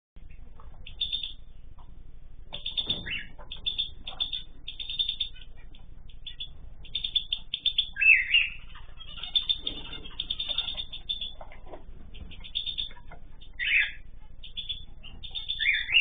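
Cage birds in an aviary with cockatiels chirping: rapid runs of short, high chirps throughout, with a few louder calls, the loudest about halfway through and again near the end. The top notes are cut off, as by a security camera's microphone.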